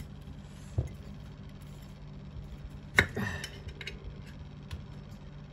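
Zippo lighter being handled: a dull knock about a second in, then one sharp metallic clink with a short ring about three seconds in.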